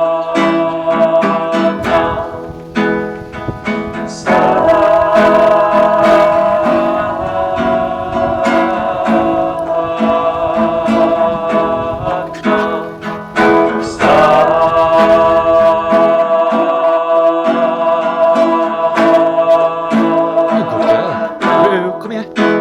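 Music: a plucked acoustic guitar, with a long-held melody line entering above it about four seconds in and again about fourteen seconds in.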